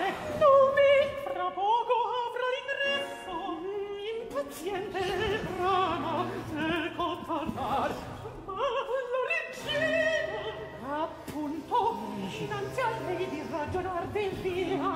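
Countertenor singing Italian recitative, quick sung declamation over sustained low continuo notes.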